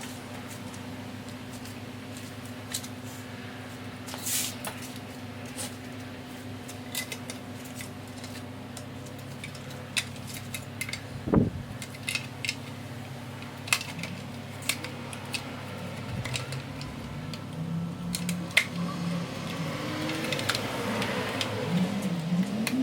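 Scattered light clicks and taps over a steady low hum, with one louder knock about halfway through. Near the end a car engine starts to rise in pitch as it revs.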